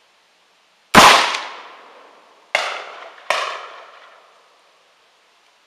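Three gunshots, each trailing off in an echo: a loud, close shot from an AR-style M4 rifle about a second in, then two quieter shots, the first a second and a half later and the second under a second after that.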